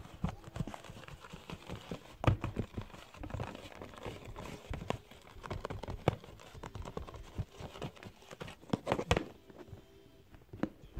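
Fingers poking and pushing at the bottom of a plastic slime container to force a thick, fluffy slime out: irregular taps, clicks and soft squishing, with a louder knock about two seconds in and another near nine seconds.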